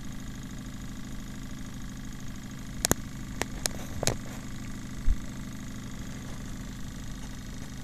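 Rewound CPU fan running as a Bedini pulse-motor battery charger, giving a steady hum. A few sharp clicks come around the middle, and a single low thump comes about five seconds in.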